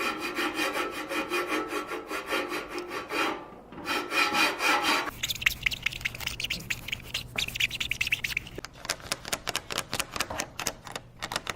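Fast rhythmic rasping strokes, like rubbing or sawing, with a short break about three seconds in. About five seconds in it changes to a different scraping sound over a low steady hum, and for the last three seconds there is a quick run of sharp clicks.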